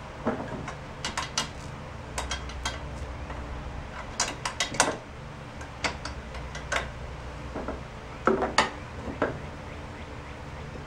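Hand tools clinking and tapping on metal: irregular sharp metallic clicks and knocks, a dozen or so, with a cluster of louder ones near the end, over a faint steady low hum.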